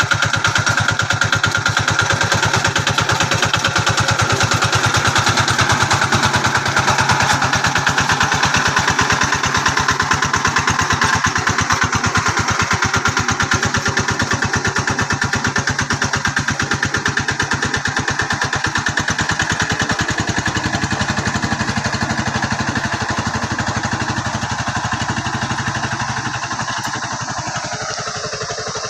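Engine of a rice-field plough hand tractor running steadily with a rapid, even firing beat, getting somewhat quieter over the last few seconds.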